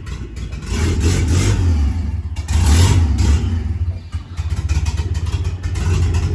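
A vehicle engine running at low revs, a steady low drone that gets louder about a second in, with a brief dip a little past the middle.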